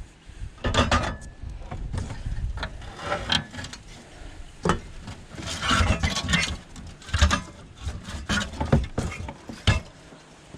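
Irregular clicks, clinks and knocks of metal parts being worked with snips while an air conditioning unit is stripped for scrap.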